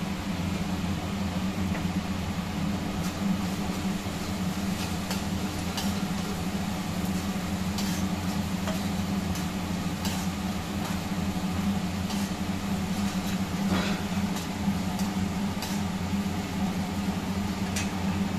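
Steady low motor hum, with a metal spoon scraping and clinking against a steel kadai every second or two as onions with turmeric are stirred and fried.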